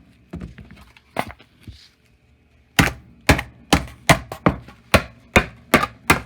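Repeated hard blows smashing an iPhone 8: a few scattered strikes, then a steady run of about two blows a second from nearly three seconds in.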